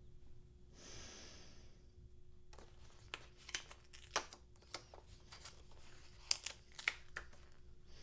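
A sheet of paper or card being handled and torn, giving a run of sharp, irregular crackles from about two and a half seconds in. Before that comes a single breath, with a faint steady hum underneath throughout.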